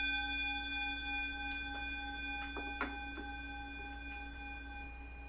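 Metal singing bowl ringing on after a wooden mallet strike, several steady overtones slowly fading, with a faint click near the middle. It is rung to open worship.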